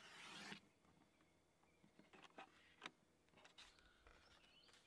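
Sliding paper trimmer's cutting head drawn along a sheet of watercolor cardstock: a short, faint cutting swish in the first half-second, then faint taps and rustles as the cut cards are picked up and handled.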